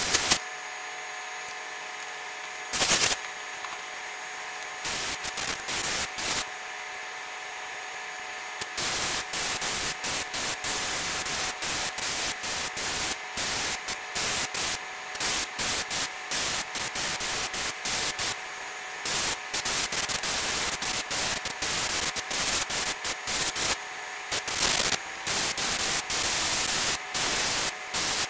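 Airbrush hissing in short on-off bursts as the trigger is pressed and released to lay down paint, some bursts rapid and some a second or so long, over a steady background hum. Two louder blasts of air come near the start and about three seconds in.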